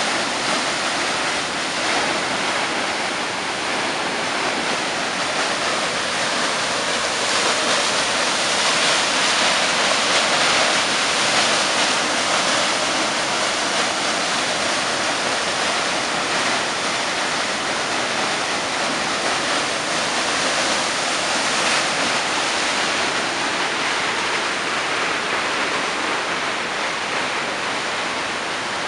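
Waterfall: a steady rush of falling water, a little louder about a third of the way in.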